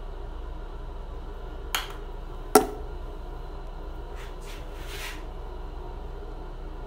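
Two sharp clicks about a second apart, the second louder: the flip-top cap of a face-pack tube being snapped shut. About four seconds in come three soft swishes of fingers spreading the pack over the face, over a steady low hum.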